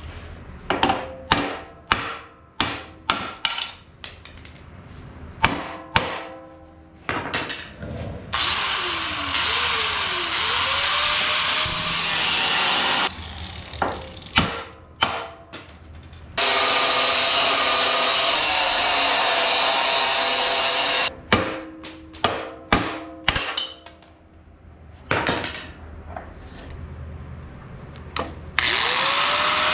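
An angle grinder grinding the steel engine-mount risers off a Sears 10XL garden tractor's frame, in runs of several seconds that start and stop sharply, its motor pitch rising as it spins up. Between the runs come clusters of sharp, ringing metallic knocks, about two a second.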